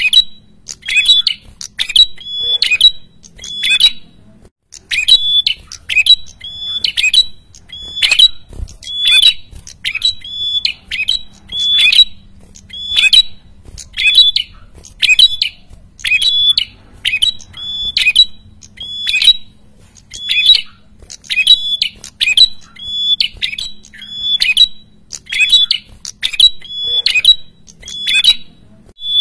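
A caged prenjak kepala merah calling over and over in full, constant voice (gacor): one sharp, high note repeated about one and a half times a second, with a brief pause about four seconds in.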